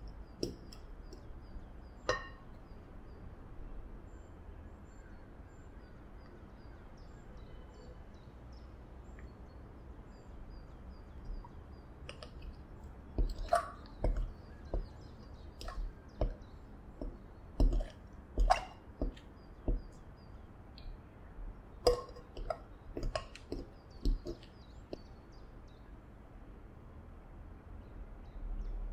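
Metal utensil clinking and scraping against a glass mixing bowl while stirring thick yeast dough, in a run of sharp, irregular taps from about twelve seconds in, with quieter stirring before.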